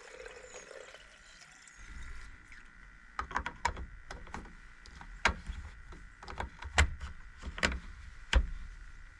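Irregular sharp clicks and knocks from handling a Stihl MS 231 chainsaw and its fuel can while refuelling. They start about three seconds in and come in about a dozen strokes, a few much louder than the rest.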